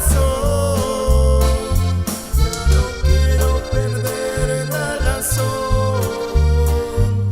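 A band playing an instrumental passage led by accordion, over a rhythmic bass line, with no singing.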